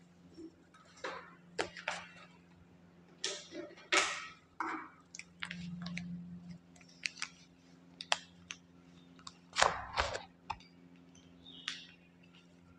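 Scattered light clicks, taps and brief rustles of small objects being handled, irregularly spaced with the sharpest ones about four and ten seconds in, over a faint steady electrical hum.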